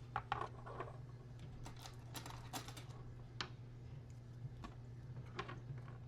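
Scattered light clicks and taps of small RC kit parts and tools being handled during assembly, busiest in the first three seconds, over a steady low hum.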